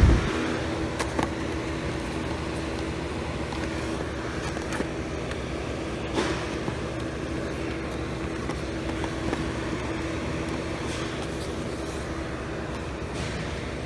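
Steady low background hum, probably fans or ventilation running in the store, with a faint steady tone through most of it and a few light clicks.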